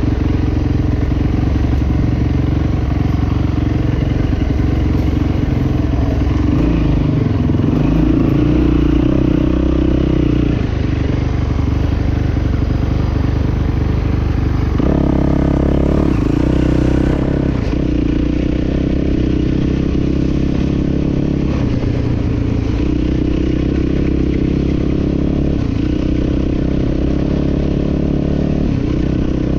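Dirt bike engine running under way, its note rising and falling with the throttle, with a sharp climb about halfway through that drops back a couple of seconds later.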